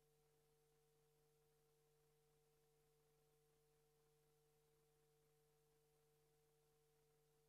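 Near silence: a faint, steady hum and hiss of the recording with nothing else.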